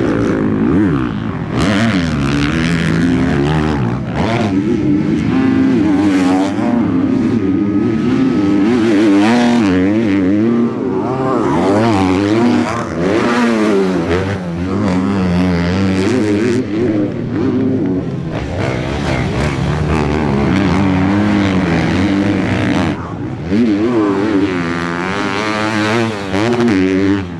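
Motocross bike engines revving hard, repeatedly rising and falling in pitch as the riders accelerate, shift and back off around the track, with more than one bike heard at once at times.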